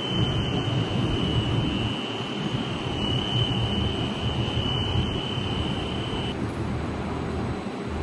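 Glass tempering furnace running with a loud, steady rush of air and low rumble. A thin high whine cuts off about six seconds in.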